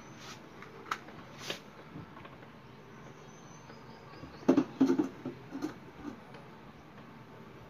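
Aluminium pressure cooker being handled and set down on a gas stove's burner grate. There are a few light clicks early on, then a cluster of metal clanks and knocks about four and a half seconds in as the cooker is settled on the grate.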